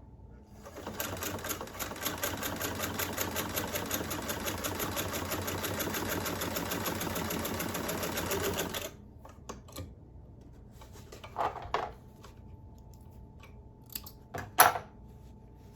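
1950 Singer 99K sewing machine stitching through four layers of denim: a fast, even needle rhythm that speeds up over the first second and stops about nine seconds in. A few short clicks and rustles follow.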